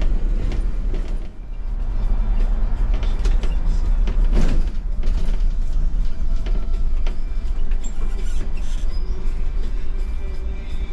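A MAN city bus driving, heard from the driver's cab: a steady low engine and road rumble with frequent rattles and knocks from the bodywork, one louder knock about four and a half seconds in.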